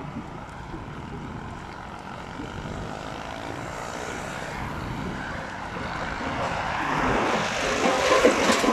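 A motor vehicle's engine droning as it passes along the highway, growing louder toward the end, over wind noise from riding a bicycle.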